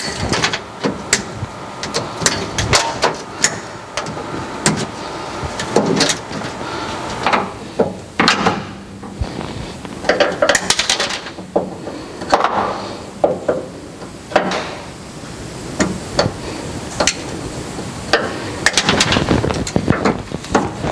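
Hand tools clicking, clanking and knocking against metal fittings and lines as the plumbing and wiring are stripped from a drag car's chassis. The knocks come at irregular intervals, with short scraping and rustling between them.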